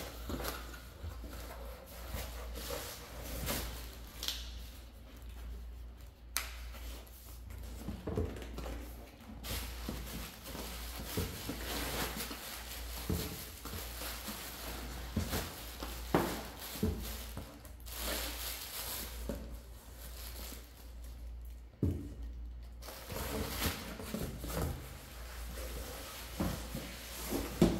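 Plastic air-cushion packaging and cardboard rustling and crinkling as boxes are handled and pulled out of a shipping carton, with occasional light knocks.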